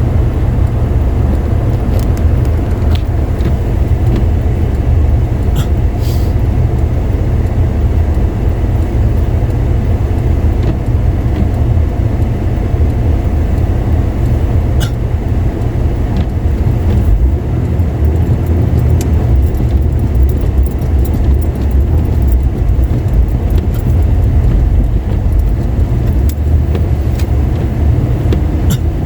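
A car being driven on wet, slushy roads, heard from inside: a steady low rumble of tyres and engine, with a few faint clicks now and then.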